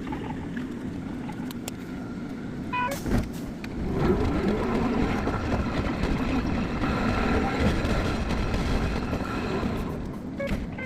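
Hankai Tramway streetcar running, a steady rumble of wheels and motor with a faint whine. A short run of high tones comes just before three seconds in, and the running noise grows louder about four seconds in.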